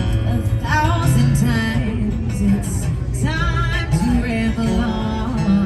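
Live band music with a singer: steady low bass notes under sung phrases that come in about a second in and again past the middle.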